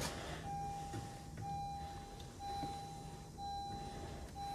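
Electronic warning beep sounding steadily on and off, about once a second, each tone held nearly a second with a brief gap between.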